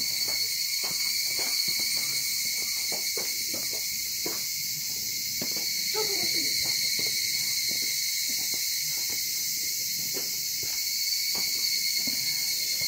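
Loud, steady insect chorus, a constant high shrill drone, with faint footsteps ticking beneath it.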